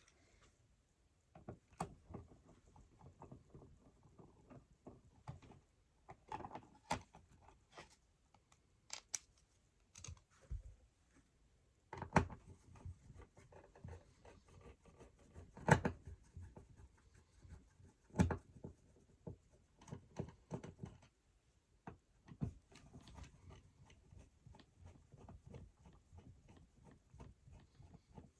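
Handling noise of a wall outlet being unscrewed and pulled from its electrical box: scattered light clicks, scrapes and taps of tools and hands on the receptacle, with a few sharper knocks, the loudest about halfway through.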